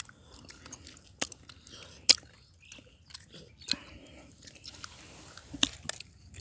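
Bites and chewing into fresh Indian jujube (boroi) fruits: a handful of separate sharp snaps over faint chewing, the loudest about two seconds in.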